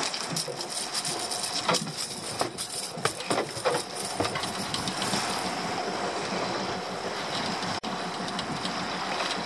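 Small open boat at sea: steady wind and water noise, with a run of sharp knocks and rattles in the first few seconds as gear and the catch are handled in the hull, and a few more near the end.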